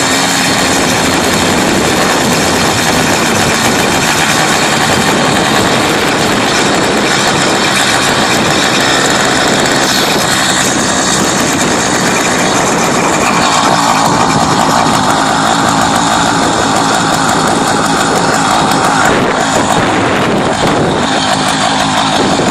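Small engine of a motorized bicycle running steadily while the bike is ridden. Its sound shifts about thirteen seconds in.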